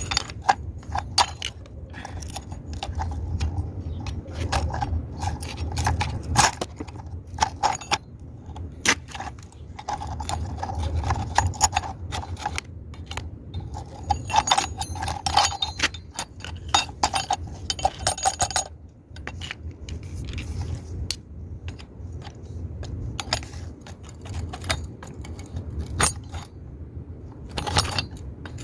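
Metal tool scraping, clicking and clinking against an EGR valve, chipping away heavy carbon deposits, in irregular bursts with a brief pause partway through, over a low steady hum.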